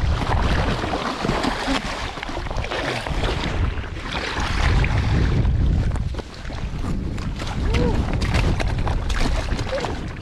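Wind buffeting the microphone, a heavy rumble throughout, with scattered scuffs and knocks as the camera moves and a catfish is landed on the rocky bank.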